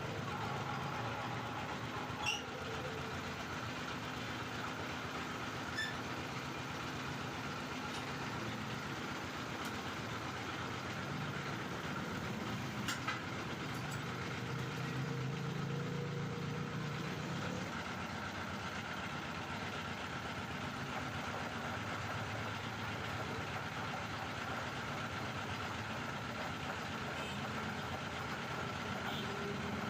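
A machine running steadily with an even hum, with a few light clicks.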